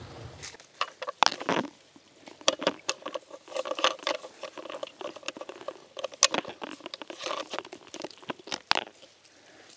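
Irregular squeaks, creaks and clicks of 3/4-inch black poly pipe being twisted and pressed onto a barb fitting by hand, plastic rubbing and snapping against plastic.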